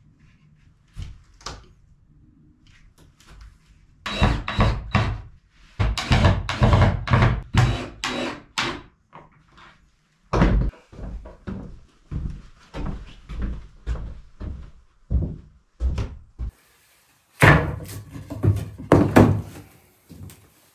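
Wooden knocks, thuds and clatter of pine boards being handled and fastened together on a wooden floor. They come in irregular clusters, with the loudest hits near the end.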